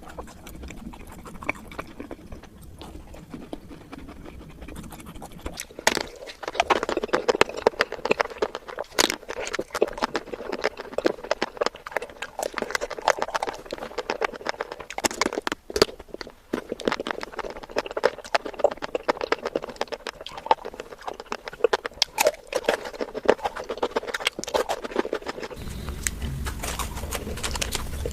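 Close-up chewing and biting of sweets: a dense run of wet, crackly mouth clicks, sparse at first and much busier from about six seconds in. A low hum joins near the end.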